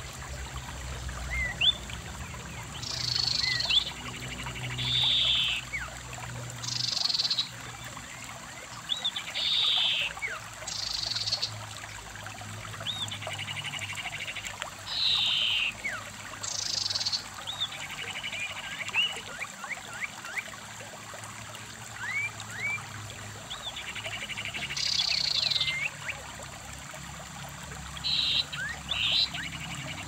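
Shallow stream running over rocks, with birds chirping in thin rising and falling whistles. Over them, a harsher high call about a second long repeats every couple of seconds.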